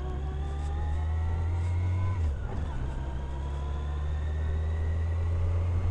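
Motorcycle engine heard from the rider's seat, pulling up through the revs with a slowly rising pitch, easing off briefly about two seconds in, then climbing again.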